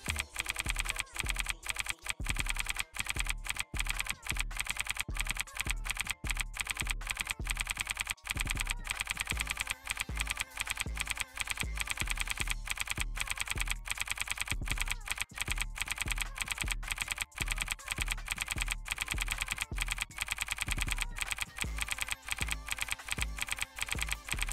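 Computer keyboard typing sound effect: a rapid, continuous run of key clicks that keeps pace with text being typed out on screen.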